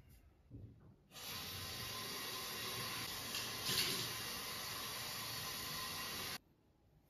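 Bathroom sink tap running steadily for about five seconds while he washes his face, with a brief louder splash about halfway through; it starts about a second in and cuts off abruptly.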